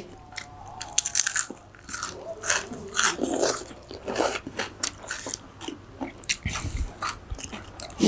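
Biting and chewing crunchy mouthfuls of spicy seafood papaya salad (tam sua): irregular crunches one after another.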